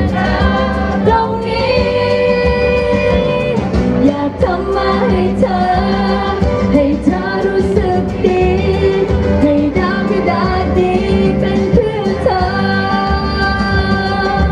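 Woman singing a Thai pop ballad live into a microphone over pop accompaniment, holding long sung notes.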